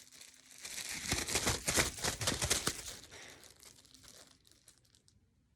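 Plastic crinkling and rustling in a dense run of crackles for about two seconds, thinning to faint rustles and dying away near the end.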